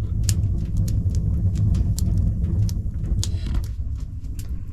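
Storm wind rumbling low and steady, with scattered sharp ticks throughout.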